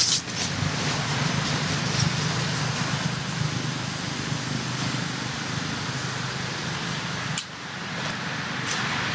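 Steady low drone of motor traffic, with a few faint clicks and crackles over it.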